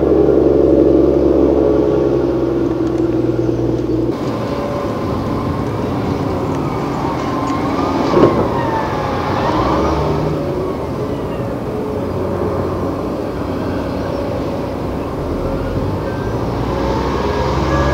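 Heavy diesel earthmoving machinery at work: a steady diesel engine note, then, after a sudden change about four seconds in, rising and falling whines with a single sharp knock about eight seconds in. Near the end there is an evenly repeating beep.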